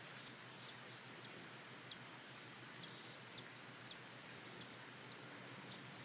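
Hummingbird chip calls: short, sharp, high chips about twice a second at an uneven pace, over a faint steady hiss.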